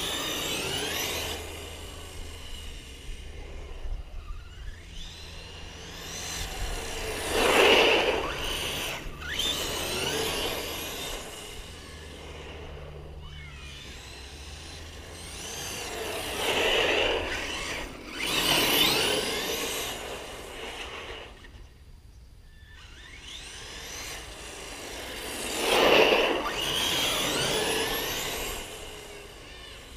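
Electric RC monster truck with a 1717 brushless motor driving back and forth on asphalt. Its motor and gears whine, rising and falling in pitch with the throttle, over tyre noise. The sound swells loudest as the truck passes close, four times: about a quarter of the way in, twice around the middle, and again near the end.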